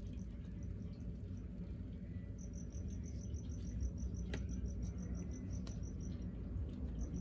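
A cricket chirping in an even, rapid pulsed trill that starts about two seconds in, stops about six seconds in and picks up again near the end. A few faint clicks sound over it.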